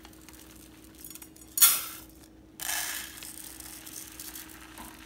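Dry rice grains pouring from a plastic bag into a plastic measuring cup over a rice cooker, with the bag crinkling; two louder rushes of grain in the middle, the second trailing off.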